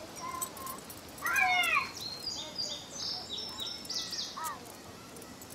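Birds singing and calling. About a second in comes a louder call of several falling notes, followed by a quick run of short, high notes.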